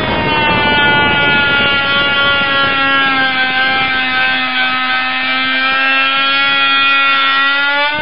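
Bosch PMF 180 E oscillating multi-tool running at full speed with a steady high-pitched motor whine and buzz. Its flush-cut blade is sawing into the bottom of a wooden door architrave.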